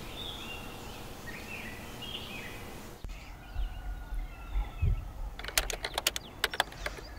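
Birds chirping over a steady background hiss. In the last part a quick run of sharp clicks joins in.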